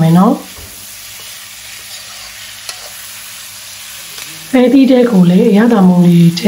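Metal spatula scraping and tossing long beans and pork belly in a wok, a run of pitched scraping strokes that stops about half a second in. Quiet sizzling of the stir-fry follows, and the scraping strokes start again about four and a half seconds in.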